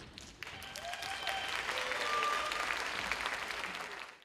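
Theatre audience applauding, starting about half a second in and fading out near the end, with a few faint voices calling out over the clapping.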